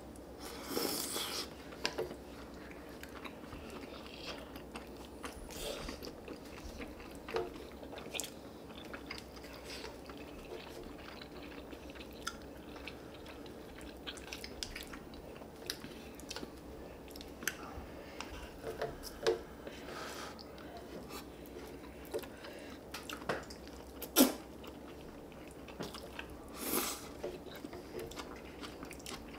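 Two people chewing and biting spicy stir-fried chicken, chewy rice cakes and stretchy melted cheese close to the microphone. Soft wet chewing and mouth sounds are broken by scattered short clicks and smacks, the sharpest about 24 seconds in.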